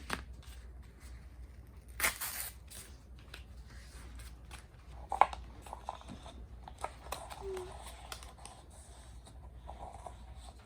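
Scattered clicks, taps and rustling of things being handled, with a longer rustle or tearing sound about two seconds in and a sharp click about five seconds in.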